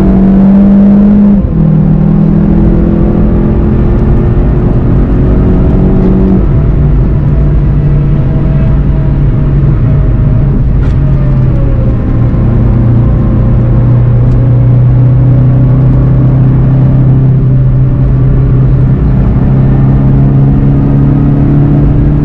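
VW Golf 7 GTI TCR's turbocharged four-cylinder engine pulling hard under acceleration, heard on board with tyre and wind noise. The engine note drops about a second and a half in and again about six seconds in, as at upshifts, then holds steady and climbs slowly toward the end.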